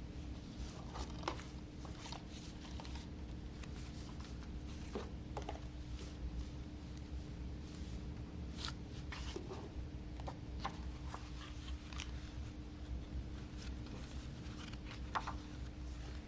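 Hands handling and unpacking a boxed disc release: scattered light clicks, taps and rustles of packaging, over a steady low hum.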